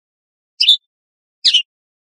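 A goldfinch calling: two short, high chirped calls less than a second apart, each a quick cluster of notes.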